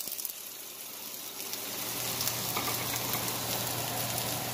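Chopped red onions sizzling in hot coconut oil in a stainless steel wok: a steady frying hiss with fine crackling, growing a little louder after about a second and a half.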